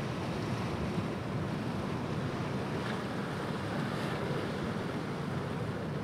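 Ocean surf on a beach: a steady rush of breaking waves, with a wave's wash swelling slightly about three to four seconds in.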